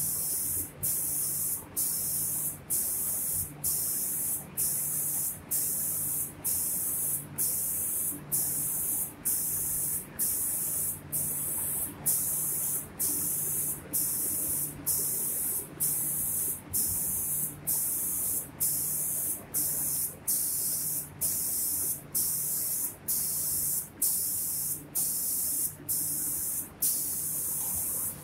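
Automatic spray painting machine's spray guns hissing as they atomise paint, cutting off briefly at an even rhythm a little more than once a second. A low hum pulses in the same rhythm.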